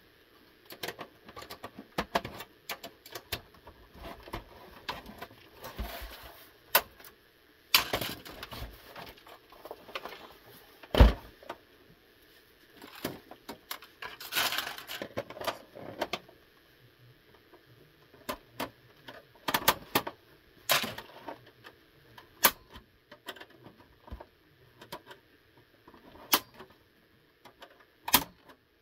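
Irregular clicks, knocks and scraping of plastic and metal as an Xbox 360 S console's casing is handled and taken apart with a screwdriver. The loudest knock comes about eleven seconds in.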